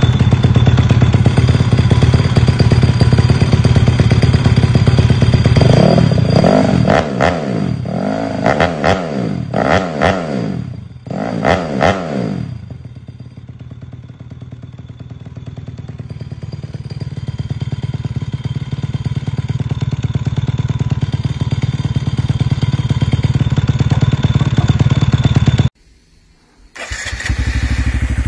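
Honda Monkey 125's single-cylinder four-stroke engine running through an aftermarket exhaust. It runs steadily at first, then is revved in about six quick blips from around six seconds in, and settles back to a lower, steadier run. It cuts out abruptly for about a second near the end, then resumes.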